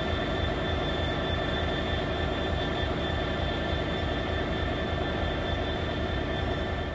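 Railway locomotive running steadily: a constant loud drone with a thin high whine over it.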